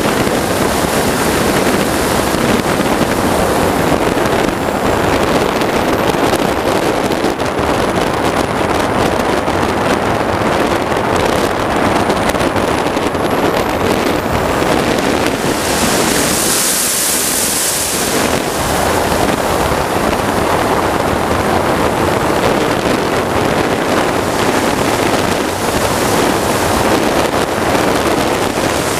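An RC sport jet model's turbine and the airflow around it, making a steady loud rushing roar. A faint high whine dips and then rises in pitch. About sixteen seconds in, the sound briefly thins to a high hiss.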